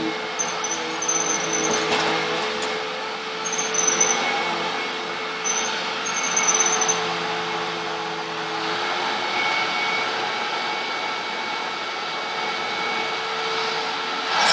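Hoover WindTunnel upright vacuum cleaner running steadily, its motor giving a steady hum, with a high whistle that comes and goes during the first half.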